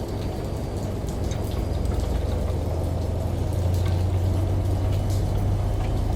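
Running water and rain layered over a steady low washing machine hum, with scattered light drips; the hum and water grow louder about two seconds in.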